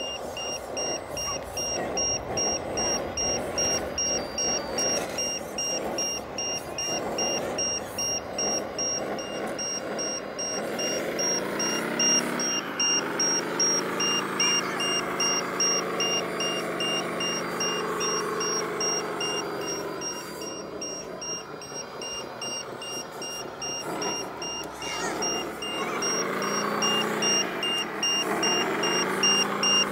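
Radio-controlled wheel loader driving, its engine sound revving up about a third of the way in, holding for several seconds and dropping back, then revving and dropping again near the end. A high pulsing beep runs underneath.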